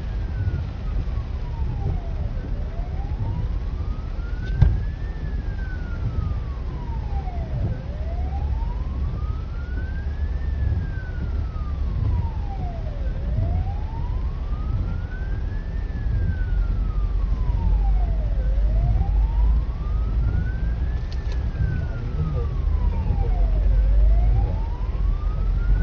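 Emergency-vehicle siren on a slow wail, rising and falling about once every five seconds, heard from inside a following car's cabin over a steady low rumble. A single sharp knock about four and a half seconds in.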